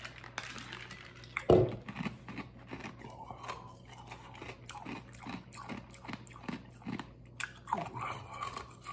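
A man breathing hard in short, uneven puffs, about two or three a second, through the burn of Mad Dog 357 hot sauce, after one louder sudden sound about a second and a half in.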